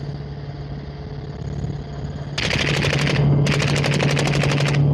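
Automatic gunfire fired from a helicopter, in two rapid bursts about two and a half and three and a half seconds in, the second longer, over the helicopter's steady hum.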